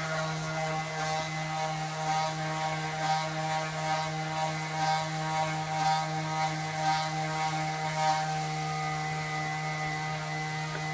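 Steady machine hum with many overtones, with soft scraping strokes about once a second that stop about eight seconds in.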